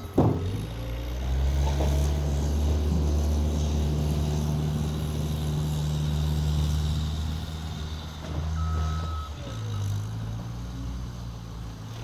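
Skid steer engine running steadily under load, dropping off briefly near the end and picking up again. A sharp knock comes right at the start, and one short high beep sounds about nine seconds in.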